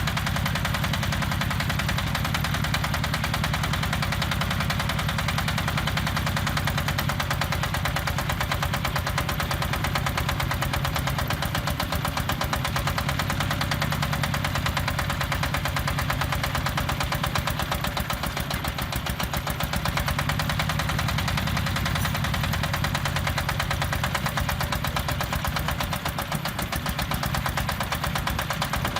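Diesel engine of a self-loading concrete mixer running steadily, with a rapid, even clatter.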